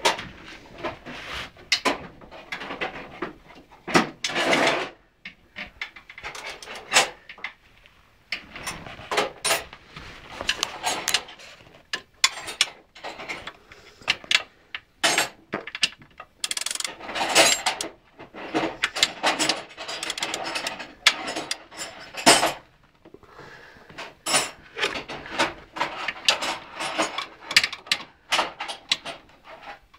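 Hand tools and metal parts clinking, knocking and scraping irregularly against the underside of an ATV as bolts are worked on by hand, in clusters of quick clatter with short pauses between.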